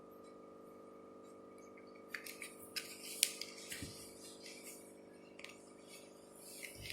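Light clicks and rustles of small caparison ornament pieces being handled and glued onto cloth, the sharpest click about three seconds in, over a steady background hum.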